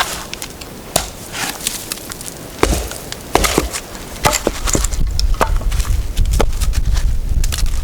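Wood cracking and snapping in irregular sharp cracks, as when branches are broken or wood is split for a fire, with a low rumble underneath from about a third of the way in.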